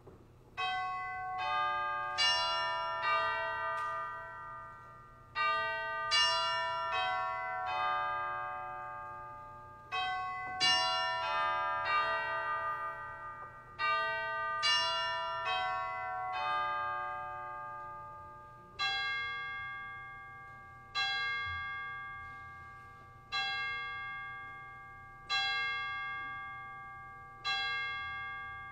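Church bells chiming a tune in four short phrases, then striking the hour with single tolls about two seconds apart, each note ringing on as it fades.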